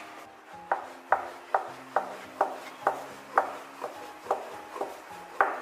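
Wooden rolling pin rolling out dumpling wrappers on a floured wooden board, knocking on the board in an even rhythm about twice a second.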